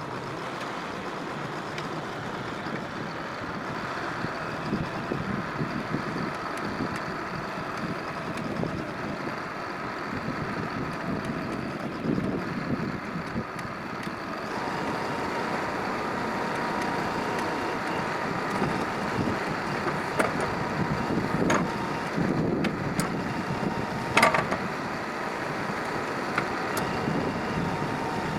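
Backhoe loader engine running steadily with a steady tone joining about halfway through, and a few sharp knocks in the second half.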